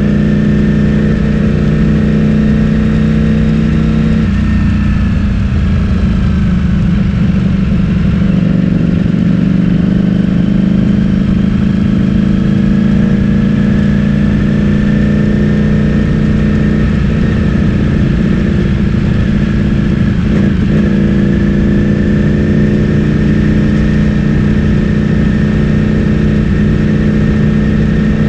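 Ducati Streetfighter V4S's 1103 cc V4 engine, breathing through an Akrapovic full-system exhaust, running steadily and loud. The engine pitch drops about four seconds in, then holds steady again.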